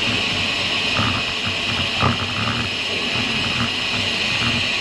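Bicycle freehub ticking in light, uneven clicks as the rider coasts, under a steady high-pitched buzz.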